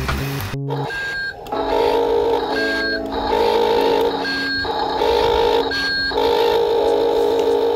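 Electronic alarm-like tones: a held, buzzy chord broken every second or so by a short, higher beep, repeating in a loop. It starts suddenly about half a second in.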